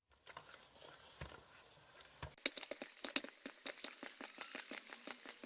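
A run of sharp clicks and taps, several a second, starting about two seconds in after a few fainter knocks.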